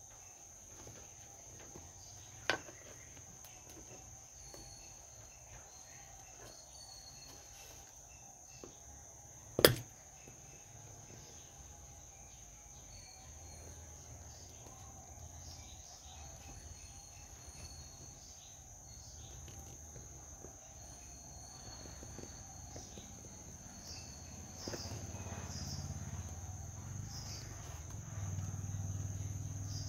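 Crickets chirring steadily in a high, even tone, with two sharp knocks, the second and louder one about ten seconds in. A low rumble rises over the last few seconds.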